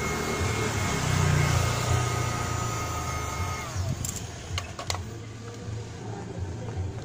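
Heat gun running with a steady whine that winds down and stops about three and a half seconds in as it is switched off, followed by a few sharp clicks. A low rumble of passing street traffic runs underneath.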